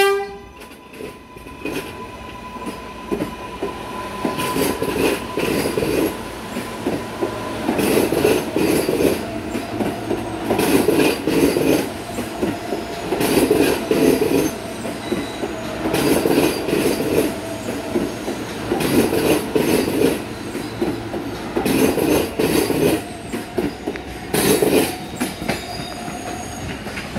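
R143 New York subway train pulling out and passing close by, its wheels clattering over the rail joints in a beat about every two and a half seconds, with a steady whine through the first eight seconds or so. A horn blast cuts off at the very start.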